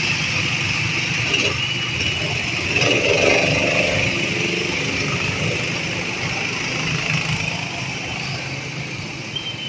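Go-kart engines running close by. One kart accelerates past about three seconds in, rising in pitch.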